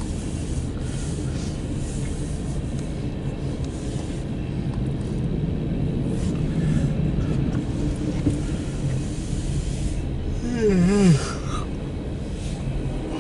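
Empty coal hopper cars of a CSX freight train rolling past with a steady rumble of wheels on rail. About ten and a half seconds in, a short wavering pitched sound rises briefly above it and is the loudest moment.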